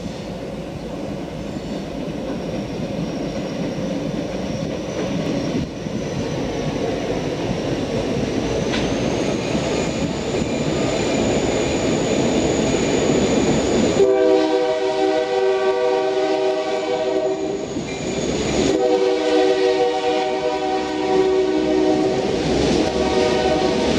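Lake State Railway diesel freight train approaching, its rumble and a thin high whine swelling, then the locomotive's chord horn sounds two long blasts, the first starting about halfway through and the second following right after a brief break and running on.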